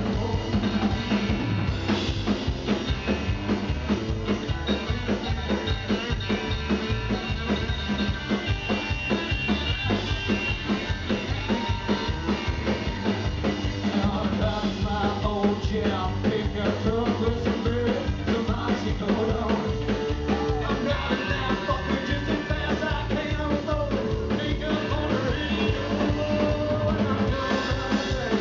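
Live band playing with a steady drum beat: electric guitar, electric bass and drum kit, amplified on a small stage.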